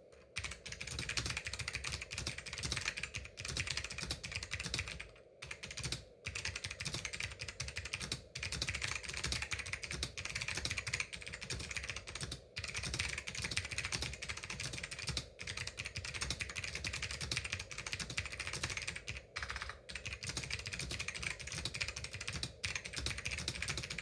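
Continuous fast typing on a Focus FK-8000 keyboard with clicky Hua Jie switches: a dense stream of sharp key clicks, broken by several brief pauses.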